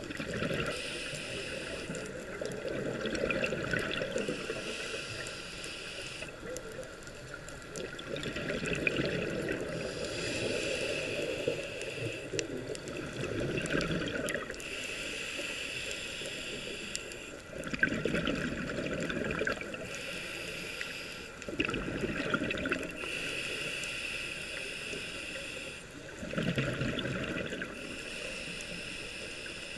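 Scuba diver breathing through a regulator underwater: a hissing inhale alternating with a bubbling exhale, about one breath every five to six seconds.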